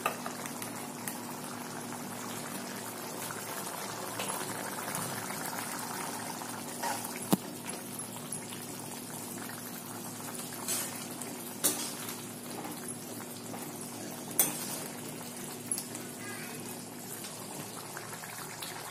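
Curry gravy simmering and bubbling in a pan on a gas stove, with a few sharp clicks of a metal spoon knocking against the pan as it is stirred.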